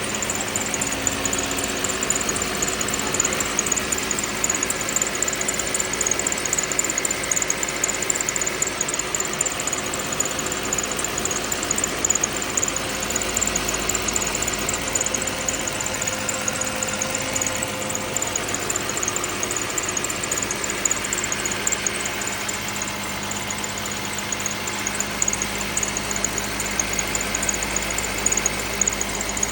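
2010 Lexus ES350's 3.5-litre V6 idling after a cold start, with a steady rattle and creak running through the engine sound.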